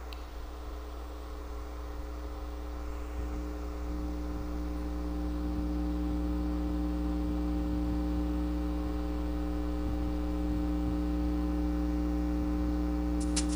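Karaoke backing track intro: a held, droning chord of several steady tones that slowly swells in volume. Drum hits come in right at the end.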